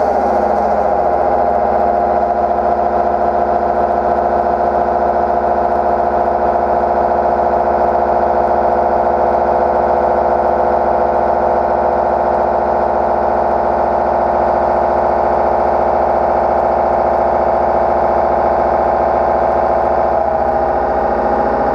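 Long-overhang Tungaloy DoForceTri indexable milling cutter with TNGU-NMJ inserts cutting a metal block in a CNC machining centre: a loud, steady ringing tone made of several pitches at once that holds without a break.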